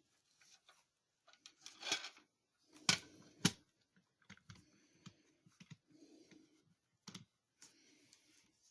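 A boxed display figure being handled out of its plastic and cardboard packaging: scattered clicks and light knocks with soft rustling.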